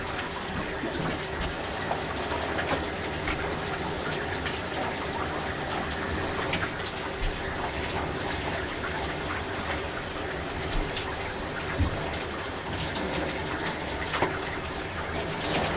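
Shower running: a steady spray of water splattering, broken by frequent small splashes and a couple of louder ones late on as a person washes under it.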